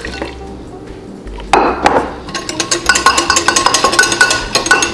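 Wire whisk clinking rapidly against a glass measuring jug, stirring warm cream into egg yolks. Before the clinking, cream pours quietly through a mesh sieve, and there is one sharp knock about a second and a half in.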